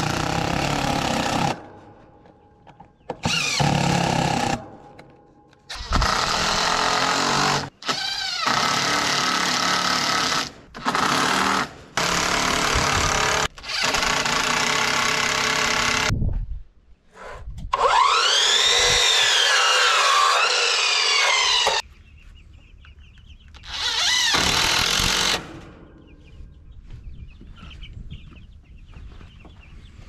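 Power tools, such as a cordless drill or driver, running in a string of short bursts that start and stop abruptly with quiet gaps between. The longest and loudest stretch, in the middle, has a whine that rises and falls several times.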